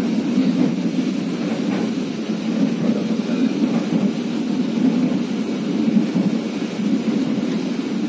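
Steady low rumble of a moving passenger train heard inside an economy-class coach, the wheels running over the rails.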